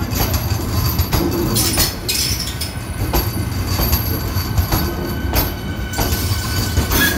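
Vande Bharat Express electric multiple-unit train rolling past along the platform as it arrives: a steady low rumble of wheels on rail with irregular sharp wheel clacks.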